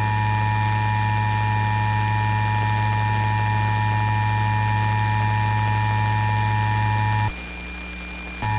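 Emergency Alert System attention signal: the steady two-tone alarm (853 and 960 Hz sounding together) received off a broadcast station, with a strong low buzz beneath it. It breaks off about seven seconds in, leaving a second of hiss, then starts again at the very end.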